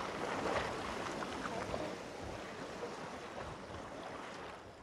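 Seaside ambience of wind and shallow water lapping, a steady hiss that fades out near the end.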